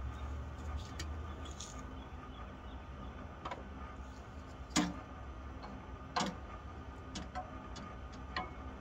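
Split kindling being handled and laid into the firebox of a stainless steel wood stove: about six sharp wooden knocks and clacks, the loudest two near the middle, over a steady low rumble.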